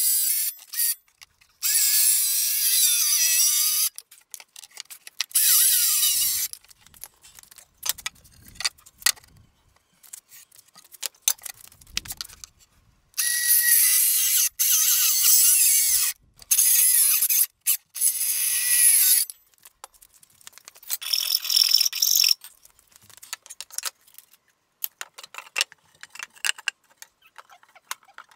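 A 12-volt Milwaukee cordless circular saw cutting glulam wood boards in several separate bursts of a few seconds each. Between the cuts come scattered clicks and knocks of handling.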